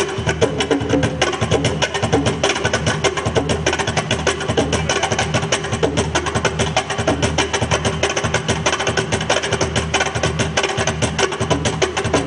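Afro-Peruvian festejo music with fast, busy percussion of dry wooden clacks over a steady bass line.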